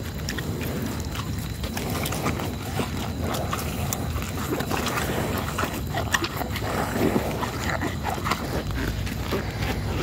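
A young calf making short sounds and struggling as hands push a green herbal stomach-remedy paste into its mouth, with wet handling noises and scattered clicks.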